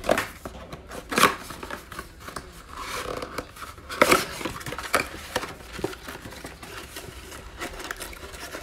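Cardboard trading-card mega box being torn open by hand: sharp rips of the cardboard flap, loudest about a second in and about four seconds in, with paper and wrapper rustling between them as the inner tray is slid out.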